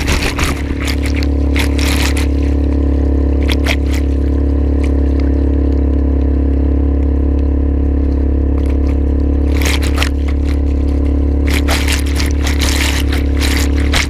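Small Suzuki 2.5 HP four-stroke outboard motor running steadily, pushing the kayak along, with water rushing past the hull. Bursts of splashing water hit near the start and again from about ten seconds in.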